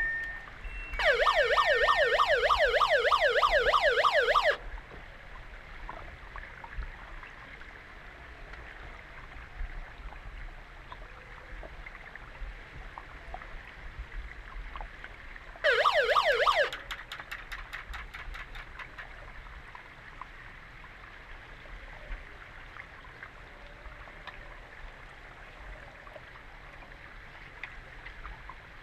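Underwater hockey referee's underwater siren warbling rapidly up and down, the signal that stops play. It sounds for about three and a half seconds near the start, then briefly again about halfway through, over a steady underwater hiss with faint clicks.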